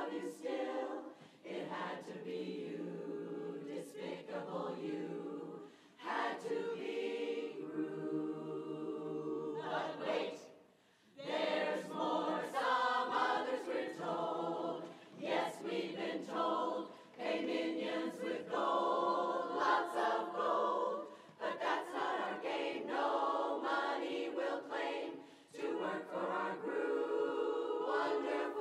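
Women's barbershop chorus singing a cappella in close harmony, the phrases broken by brief pauses, the longest about ten seconds in.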